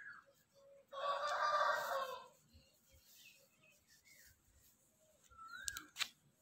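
A chicken calls loudly once for about a second, a pitched, harmonic-rich call, with a few faint short chirps from small birds around it and a sharp click near the end.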